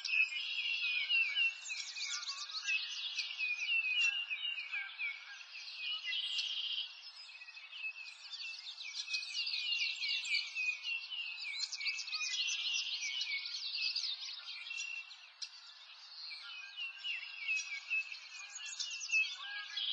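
A dense chorus of small birds chirping and twittering, many overlapping high calls with no break, easing off slightly a few times.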